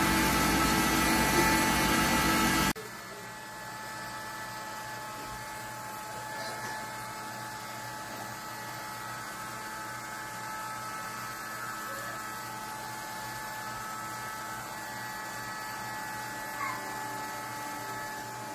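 Steady electric hum with several fixed tones. It is loud at first, then drops abruptly to a quieter steady hum a little under three seconds in.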